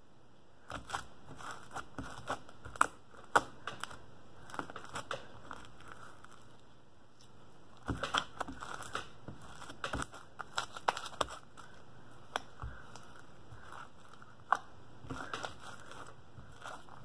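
Fluffy white cloud slime being stretched, pulled apart and kneaded by hand, giving sticky crackles and small pops as it tears. The crackling comes in clusters, with a quieter stretch in the middle.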